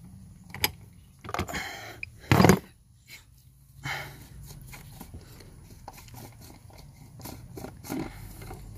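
Clicks, rustles and scrapes of hands and a wrench working the plastic oil filter housing cap loose in the engine bay, with one brief loud rush of noise about two and a half seconds in.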